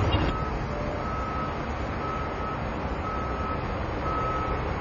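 A vehicle's reversing alarm beeping about once a second on a single steady tone, over a steady background of outdoor noise.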